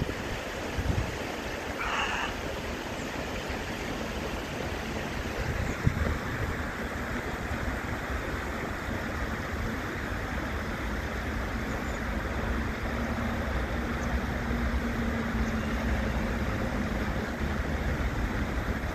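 Shallow stream water running and rippling over stones, with wind buffeting the microphone.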